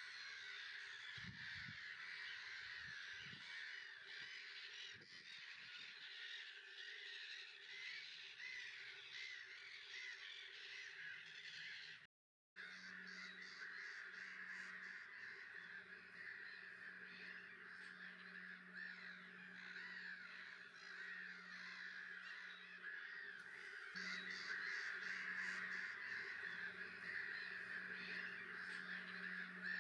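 A black-headed gull colony calling without pause, many birds' cries overlapping into a dense chatter. The sound drops out for a moment about twelve seconds in, and after that a low steady hum runs underneath.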